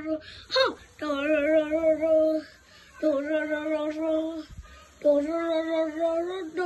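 A woman's singing voice holding long, slightly wavering notes, one phrase about every two seconds with short gaps between, and a quick falling squeak about half a second in.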